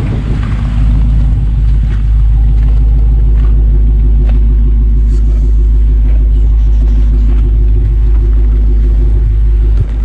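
Supercharged 6.2-litre V8 of a 2020 Dodge Charger Daytona Hellcat idling steadily with a low rumble.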